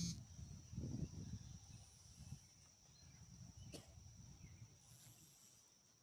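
Faint outdoor ambience: irregular low rumbling, like wind on the microphone, under a steady thin high tone, with one sharp tick a little past the middle.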